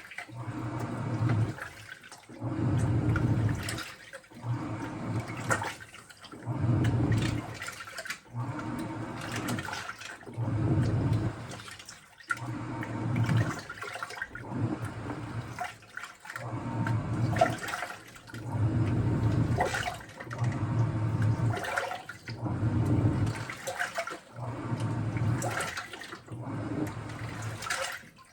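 Washing machine running through its cycle, with water sloshing and gushing in regular surges about every second and a half as the drum turns.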